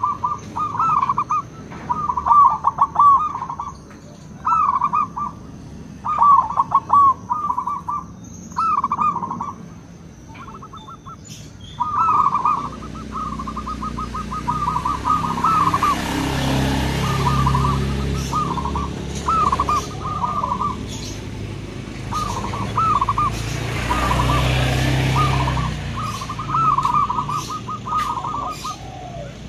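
Zebra dove (perkutut) cooing: repeated short phrases of quick, rolling coos with brief gaps between them. In the middle a low rumble with a hiss swells up behind the calls and fades again.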